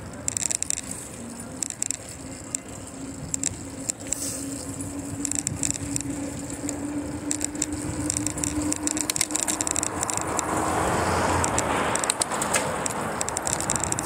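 Riding a bicycle in traffic: scattered clicks and rattles from the bike over the road and a steady low hum that rises slightly in pitch. A louder rush of noise swells about ten seconds in and eases near the end.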